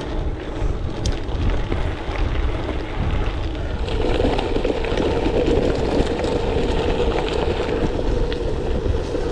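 Wind buffeting the microphone over the rolling noise of gravel bike tyres on rough off-road ground. The tyre noise grows louder and rougher about four seconds in.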